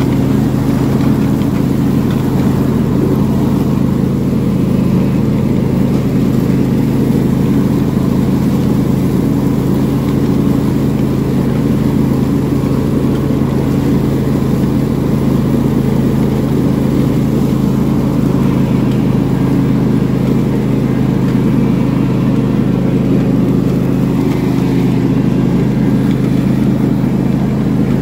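Riding lawn mower's engine running steadily under load, with the cutting deck engaged, while mowing grass.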